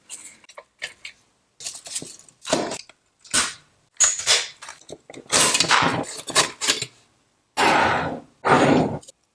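Hand work on small metal model-train parts: a run of irregular scraping and rubbing strokes with clattering knocks, the longest strokes about halfway through and near the end.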